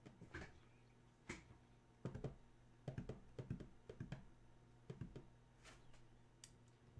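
Faint, irregular clicks and taps of hands at work, in small clusters over a low steady hum.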